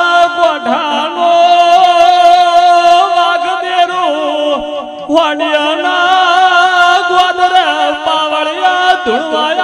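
A man chanting a Gujarati devotional dhun in long, wavering held notes, with musical accompaniment.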